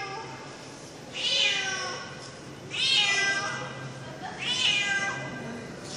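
A cat meowing repeatedly: three long meows about a second and a half apart, each falling in pitch, with a fourth starting at the very end.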